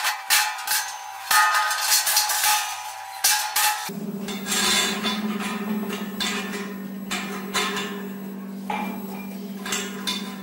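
Stainless steel drum knocking and clanking against its steel frame and base clamp as it is fitted, the metal ringing after each knock. A steady low hum comes in about four seconds in, under further irregular knocks.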